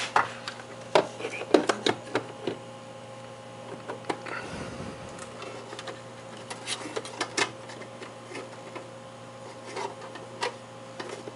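Steady electric hum, fitting the synchronous motor of a 1970s Westclox electric wall clock, with irregular clicks and knocks from the clock being handled.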